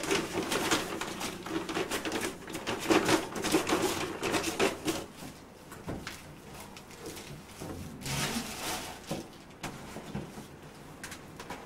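Someone rummaging through a cluttered closet, shifting and knocking objects on the shelves. It makes scattered clicks and thumps, busiest in the first five seconds and again about eight seconds in.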